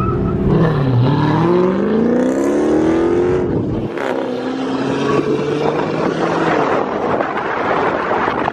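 Car engine accelerating hard: its note dips about a second in, then climbs steadily for about two and a half seconds and holds level for a few seconds. Rushing road and wind noise takes over near the end.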